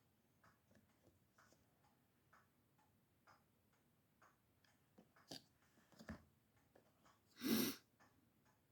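Very faint ticking at about one tick a second, with two sharp clicks about five and six seconds in and a short, louder noisy burst near the end.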